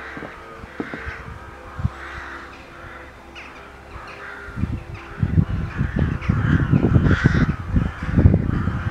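Crows cawing repeatedly in the background, about once a second. From about halfway through, gusts of wind buffet the microphone with an irregular low rumble that becomes the loudest sound.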